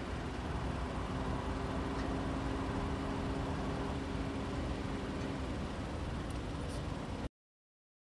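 Steady low rumble of an idling car engine with a faint, even hum. The sound cuts off abruptly to silence a little after seven seconds in.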